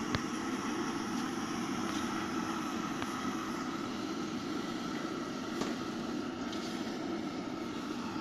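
Samosas deep-frying in a large iron kadai of oil over a gas burner: a steady sizzle and burner roar, with a few sharp clicks as the slotted ladle stirs them against the pan.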